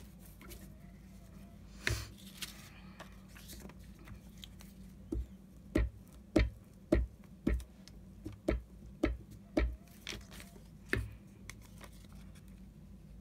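A run of about ten sharp taps on a tabletop, roughly two a second, starting about five seconds in, with a single knock and some softer paper handling earlier, as paper scraps are worked down during collaging.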